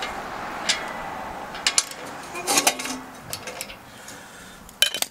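Metal tools and hardware clinking: a socket wrench and bolts knocking on the exhaust fittings in a few sharp, irregular clicks, some with a short ring.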